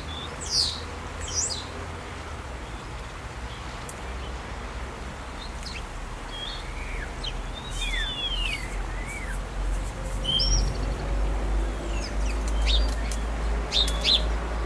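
Birds chirping and calling: short sharp chirps and a few arched, down-curving whistled notes, over a steady low rumble that grows louder in the second half.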